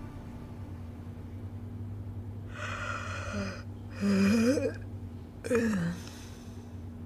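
A woman yawning: a breathy intake of breath, then a loud voiced yawn about four seconds in whose pitch rises and falls, ending in a short falling sigh.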